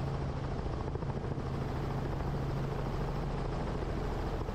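Helicopter engine and rotor running steadily on the ground, an even drone with a low hum.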